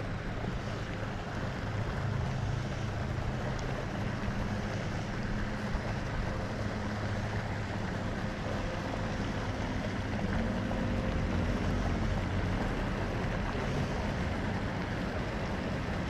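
Steady wind rumble buffeting the microphone, with a faint low hum of a distant motor underneath.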